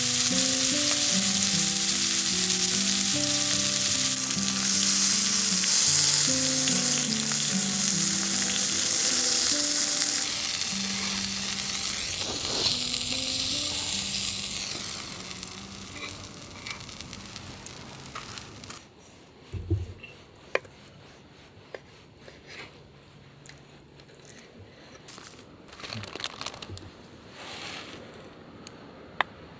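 Meat sizzling loudly in a hot pan, with background music over the first half. The sizzle fades away about fifteen seconds in, leaving a quieter stretch with a few light clicks and a knock.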